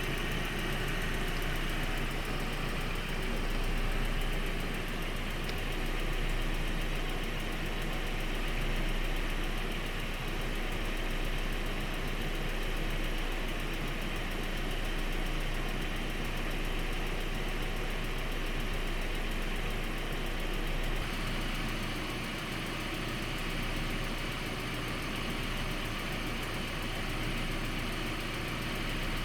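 Volkswagen/Audi 1.8T turbocharged four-cylinder engine idling steadily with a ticking noise, the fault the owner is trying to trace.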